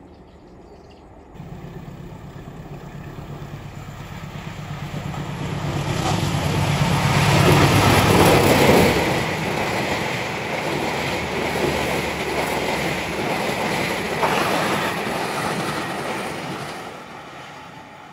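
Diesel-hauled passenger train passing close by on the rails. The locomotive's engine drone grows louder to a peak about eight seconds in. Then the carriages' wheels rumble and clatter past over the track, fading near the end.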